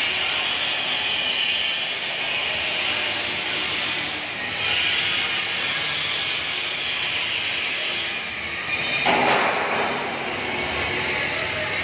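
Steady loud rushing, hissing machine noise, swelling briefly about nine seconds in.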